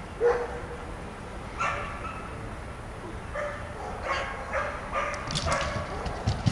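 A dog barking repeatedly in short single barks, with a thump near the end.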